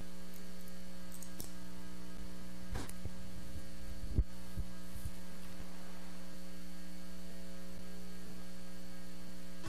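Steady electrical mains hum, several unchanging tones at once, with a faint click a little under three seconds in and a sharper click about four seconds in.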